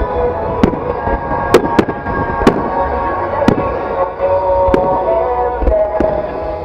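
Fireworks bursting in a series of sharp bangs roughly once a second, with music playing steadily underneath.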